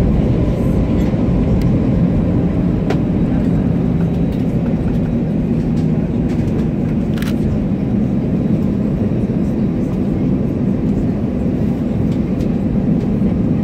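Inside the cabin of an Airbus A319 rolling out on the runway after landing: a steady, deep rumble of the CFM56 engines and the wheels on the runway, with a couple of light clicks about three and seven seconds in.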